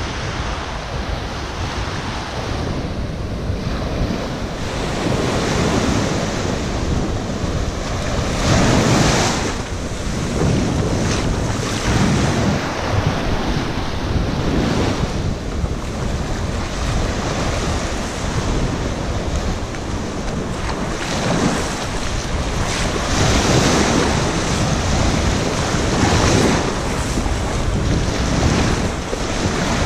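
Small surf breaking and washing up a sandy shore, swelling every few seconds as each wave comes in, with wind buffeting the microphone.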